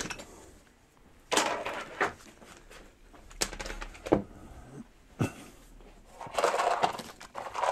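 Tools and bits being handled and packed into a fabric tool tote: rustling and clattering in two bursts, with a few sharp knocks and clicks between them.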